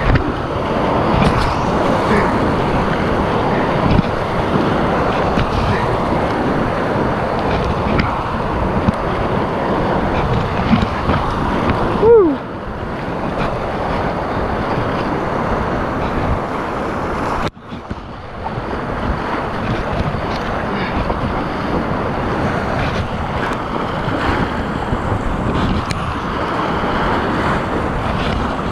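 Rushing whitewater of a river rapid heard from an inflatable kayak running it, with wind buffeting the microphone. About twelve seconds in comes a short falling whoop, and a few seconds later the sound cuts out for a moment.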